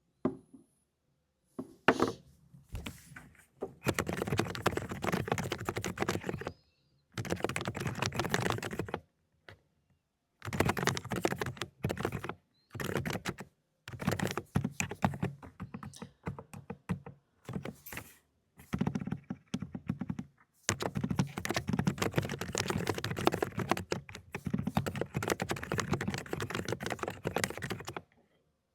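Fast typing on a mechanical keyboard with silent 'cotton candy' switches. It comes in runs of rapid keystrokes lasting a few seconds each, split by short pauses, with a few single key presses at the start.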